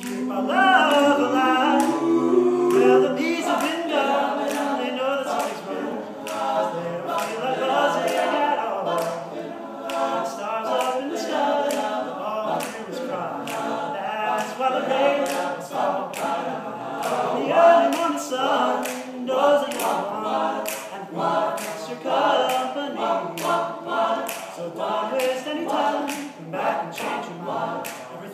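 All-male a cappella group singing a song in several-part harmony, with a steady clicking beat under the voices.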